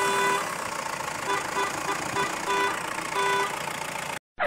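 A horn tooting in a pattern of short and longer blasts over a steady rushing noise. All sound cuts out abruptly for a moment near the end.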